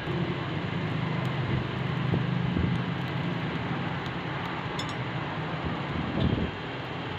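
Electric blower of a coal forge running with a steady hum and a rush of air. The hum drops away near the end.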